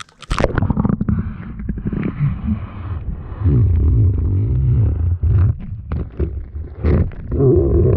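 Underwater sound picked up by a GoPro Hero 7's built-in microphone as the bare camera is lowered into the sea: a loud, low, wavering rumble of water moving against the camera, with a few knocks.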